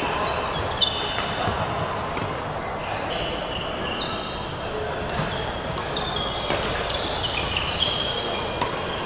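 Doubles badminton rally: sharp clicks of rackets hitting the shuttlecock, the loudest just under a second in, with players' shoes squeaking on the wooden court floor throughout.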